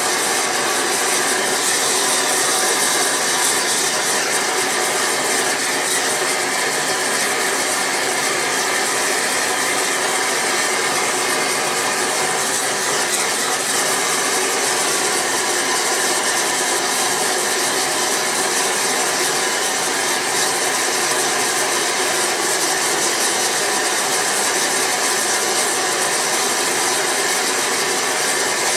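Large gas torch flame melting sterling silver, a loud steady rushing with a fine crackle running through it.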